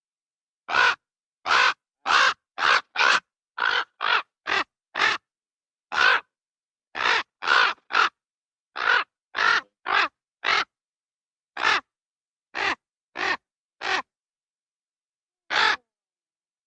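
Raven calling: about twenty-two short, harsh croaking calls, some in quick runs of two or three, others spaced a second or more apart.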